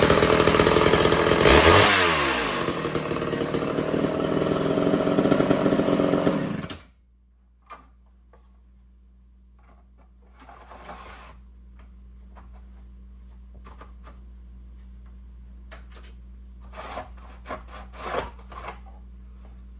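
Homelite Super XL "Big Red" two-stroke chainsaw running loudly, its engine note dropping about two seconds in. It cuts off abruptly after about seven seconds. Then come faint rustles and clicks as the saw is handled.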